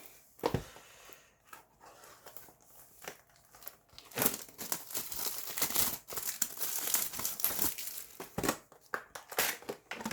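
Plastic wrapping crinkling and tearing as a sealed trading-card booster box is opened by hand, in irregular bursts that are busiest in the middle stretch.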